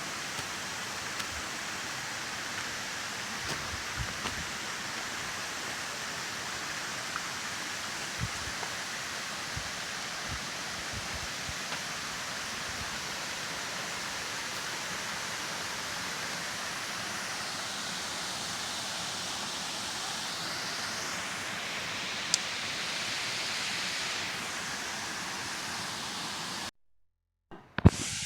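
Waterfall's falling water making a steady, even rushing noise. It cuts to silence for about a second near the end, followed by a sharp click.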